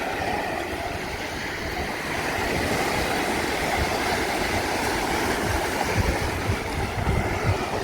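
Gentle sea waves washing on the shore: a steady wash of water noise.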